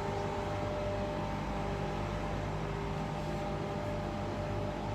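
Scania lorry's diesel engine idling steadily, heard from beside the rig.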